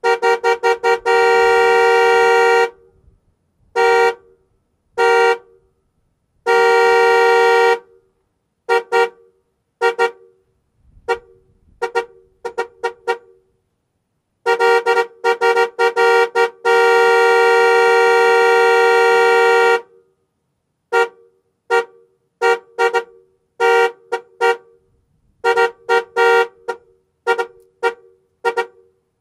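Car horn sounding two notes together, honked in a series of quick short toots mixed with long blasts, the longest held for about five seconds.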